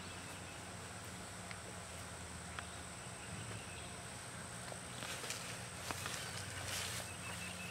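Hands and a potato fork working loose garden soil: faint scraping and crumbling of dirt with a few small clicks, getting busier about five seconds in as the fork lifts a clump of soil. A steady high insect buzz runs behind it.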